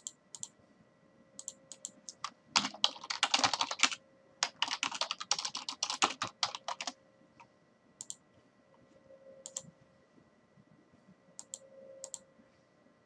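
Typing on a computer keyboard in two quick bursts of keystrokes, with a few scattered single clicks before and after.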